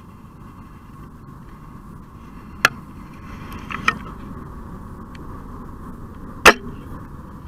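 A bow being shot: one sharp, loud release near the end, preceded by two smaller clicks, over the steady drone of highway traffic.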